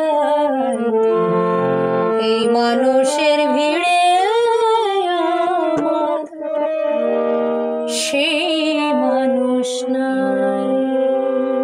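A woman singing a Bengali song to her own harmonium accompaniment: the harmonium's reeds hold steady chords under her wavering, gliding voice.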